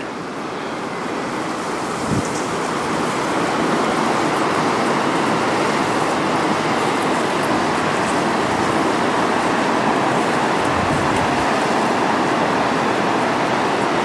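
Steady rushing of the river in the gorge below, a dense even roar that builds a little over the first few seconds and then holds level.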